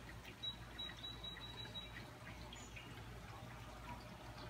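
Faint steady rain falling, with scattered drips near the microphone. A short, thin high tone with a few clicks sounds near the start.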